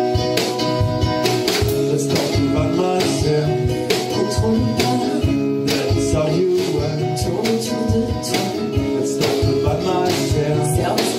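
Live acoustic pop band playing: strummed acoustic guitar with ukulele, keeping a steady rhythmic beat.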